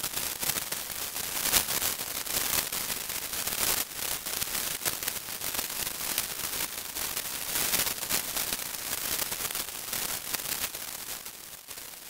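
Computer-synthesized multifractal white noise from a cascade model: a hiss broken by irregular crackling bursts, sounding like a Japanese sparkler (senko hanabi). It fades near the end and stops.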